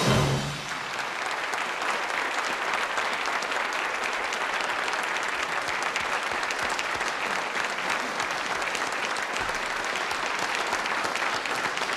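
A band's final note cuts off about half a second in, then a large audience applauds steadily, many hands clapping.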